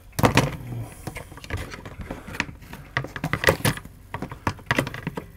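Irregular clicks, taps and light knocks of a circuit board and plastic parts being handled and pressed into an induction cooktop's plastic housing.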